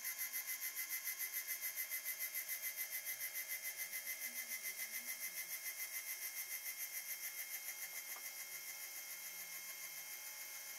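12 V DC linear actuator's electric motor and gearbox running as the rod retracts: a steady whine with a fast, even pulsing, easing slightly near the end.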